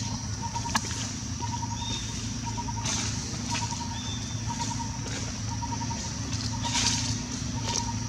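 Steady low motor hum, with a short high note repeating about once a second over it.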